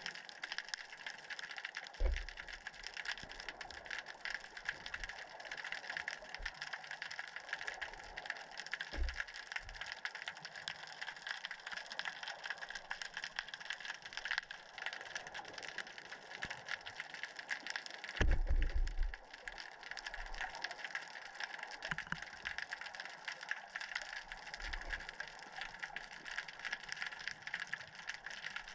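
Underwater ambience picked up by a submerged camera: a steady, dense crackling hiss, broken by a few low thumps. The longest and loudest thump comes about 18 seconds in.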